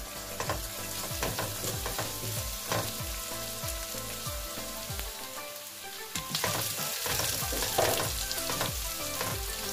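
Sliced onions sizzling in hot oil in a nonstick kadai while they are sautéed with turmeric and salt, a wooden spatula scraping and knocking against the pan as it stirs.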